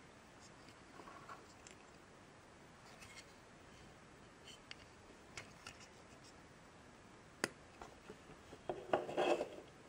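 A small plastic TARDIS model kit handled in the fingers: scattered light clicks and fingers rubbing on plastic, with one sharper click about three-quarters of the way through and a short burst of rubbing and clicking near the end.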